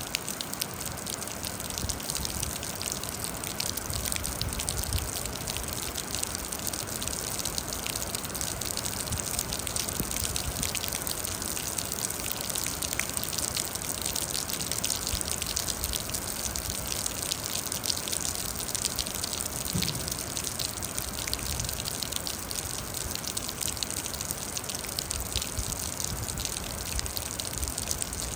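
Steady rain: an even hiss dotted with a dense patter of individual drops.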